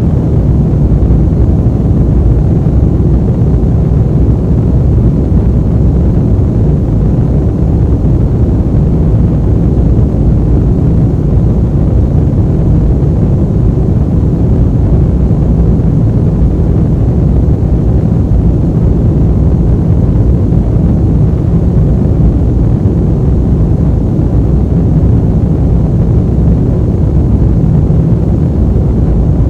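Airplane ambient noise: a steady, even low rumble that holds unchanged throughout.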